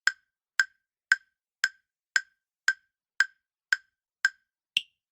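Countdown timer sound effect: ten short, even wood-block-like ticks about two a second, the last one higher in pitch, timing the pause for answering a quiz question.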